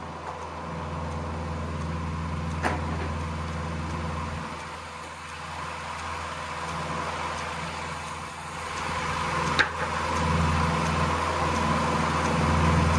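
Farm tractor engine running steadily, driving a sawmill edger through its PTO shaft and belts, with two sharp knocks, one about three seconds in and one later on.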